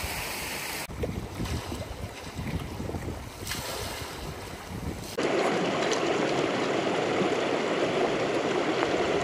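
Wind gusting over the microphone with choppy waves lapping at a loch shore. About five seconds in, this cuts abruptly to a shallow rocky stream rushing steadily and more loudly.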